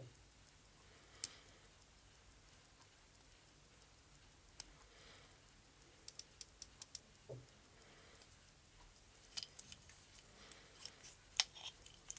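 Scattered light clicks and taps from handling a wooden watch and its packaging, with one sharper click about a second in and small flurries of clicks later on.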